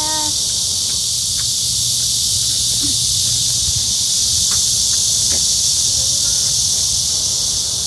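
A chorus of cicadas droning in a continuous high hiss that holds steady throughout, over a low background rumble.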